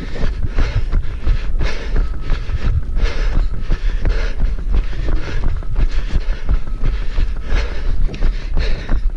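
A runner's footfalls at about two strides a second, each jolting the body-worn camera, over a heavy rumble of movement and wind on the microphone.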